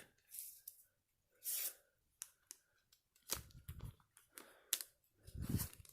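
Handling of a trading card and a plastic card sleeve: scattered soft rustles and light clicks as the card is slid into the sleeve, with a couple of dull bumps on the table.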